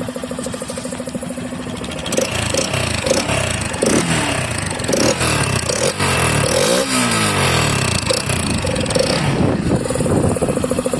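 Yamaha Factor 150's single-cylinder engine idling, then revved in a series of short throttle blips from about two seconds in, settling back to idle near the end. The air filter box cover is off and an open sports filter is fitted, which makes the engine louder than stock.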